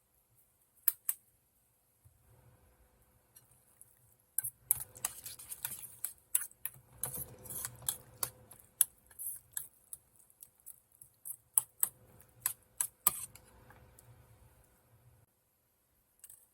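Kitchen utensils clicking and tapping irregularly, a couple of clicks early on, then a dense run of taps in the middle that thins out near the end.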